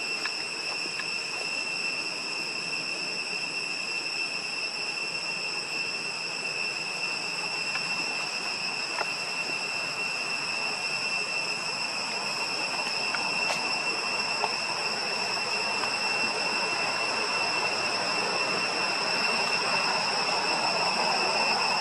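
Forest insects droning: one steady high-pitched whine with overtones above it, over a hiss that grows slightly louder near the end.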